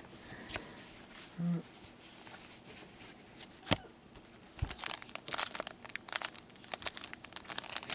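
Plastic wrapper of a hockey card pack being crinkled and torn open by hand, with dense crackling starting about halfway through. Before that there are only faint handling clicks and one sharp tick.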